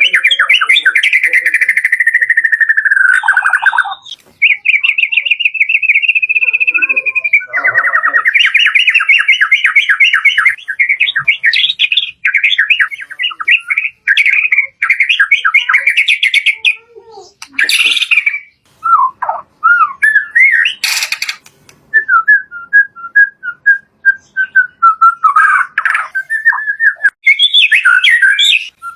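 White-rumped shama (murai batu) singing loudly in a long, varied run: fast rattling trills and whistled phrases, a long falling whistle a few seconds in, and a couple of sharp clicking notes around the middle.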